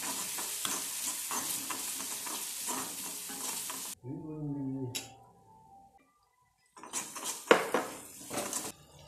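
Onion, garlic and chili-flake mixture sizzling in oil in a wok while a metal spoon stirs and scrapes it. The sizzle breaks off about four seconds in, giving way to a brief wavering hum and a near-silent pause, then comes back with louder spoon scrapes near the end.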